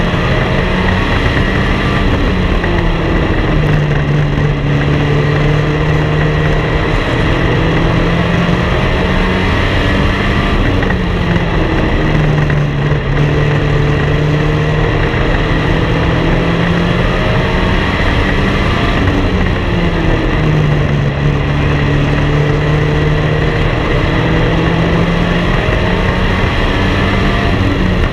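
Race car engine heard onboard at racing speed, its pitch dropping as the driver lifts for each turn and climbing again down the straights, three times about eight seconds apart, over a steady rush of noise.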